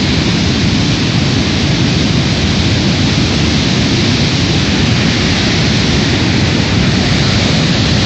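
Loud, steady rushing of the Fraser River's fast-moving whitewater rapids.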